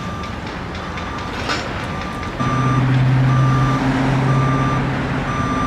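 A construction vehicle's back-up alarm beeps about once a second. About two and a half seconds in, a heavy engine starts running louder, with a steady low drone.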